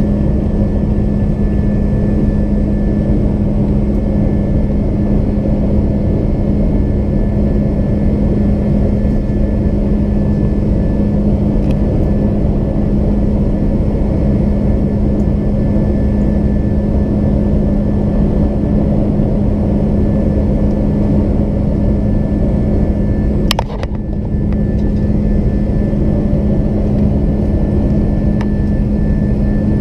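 Airbus A330 cabin noise: a steady engine and airflow rumble with a constant low hum. A single sharp click comes about 23 seconds in.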